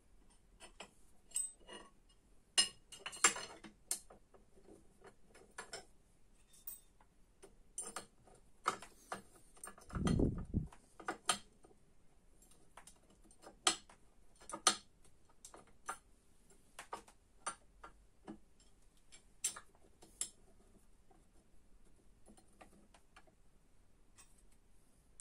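Irregular light clicks and knocks of metal parts and small screws being handled on a steel workbench, thinning out near the end, with one duller thump about ten seconds in.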